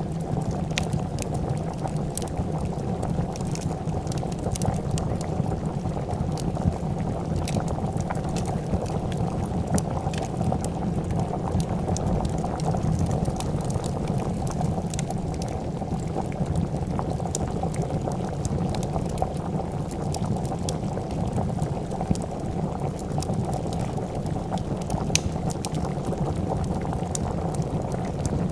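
A pot of soup bubbling at a steady rolling boil, with a wood fire crackling in scattered sharp pops over it.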